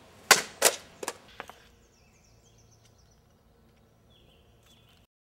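Two-handed Chinese saber striking an upright bamboo pole: two loud, sharp knocks about a third of a second apart, then two fainter ones, all within about a second and a half. Afterwards only faint background remains.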